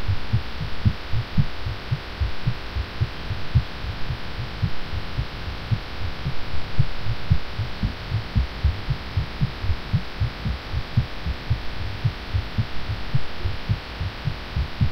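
A woman's fast heartbeat, rapid low thumps repeating evenly over a steady hiss, heard through a Skype call. She was sick and had taken cough medicine.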